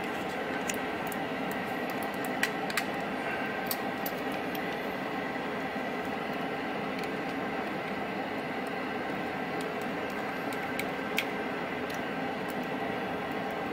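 A steady machine hum from the workbench, with a few light plastic clicks as the computer mouse's shell is handled and turned over.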